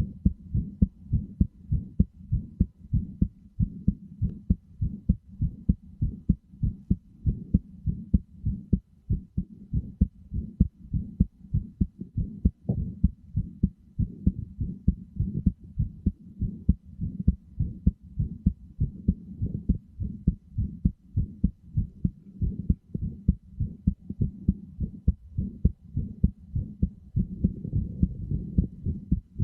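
Human heartbeat: a steady, even rhythm of short, low thumps repeating throughout.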